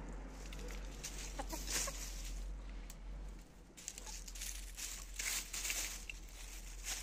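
Lohmann Brown hens scratching and pecking through soil and leaf litter, with rustling scratches throughout and a few short clucks about a second and a half in.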